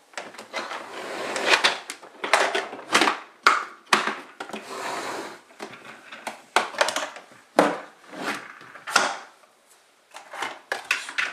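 Irregular sharp clacks and knocks of hard plastic as items are set into and shifted about in an MTM plastic ammo case and its lid is handled, with a brief rustle about five seconds in.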